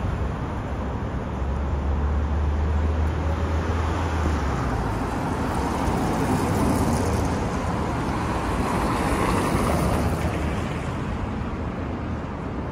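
City street traffic: cars and other motor vehicles passing with steady tyre and engine noise. A low engine drone from a large vehicle runs through the first few seconds, and the passing noise swells in the middle.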